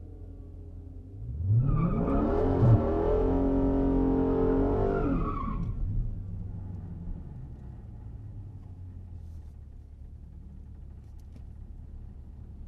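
Dodge Challenger Scat Pack's 6.4-litre HEMI V8, heard from inside the cabin, revs up about a second in and holds high for about four seconds with the tires spinning in a burnout, then drops back to a low idle.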